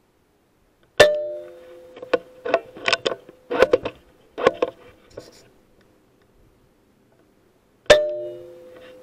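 Two air rifle shots, one about a second in and one near the end. Each is a sharp crack followed by a short metallic ring. Between them comes a run of sharp clicks and knocks.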